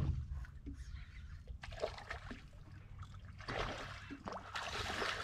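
Hooked fish splashing and thrashing at the water's surface in irregular bursts, loudest near the end, over a low steady rumble.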